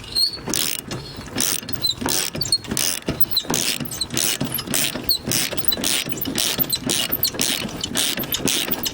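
Hand ratchet wrench working the bolt that holds a riding-mower deck blade, clicking in strokes about twice a second, with faint high squeaks between strokes.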